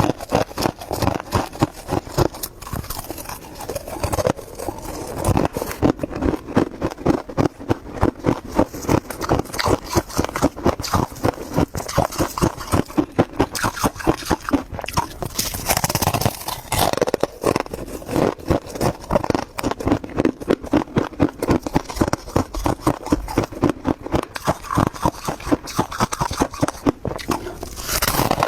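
Freezer frost being chewed, crunching over and over, a few crunches a second.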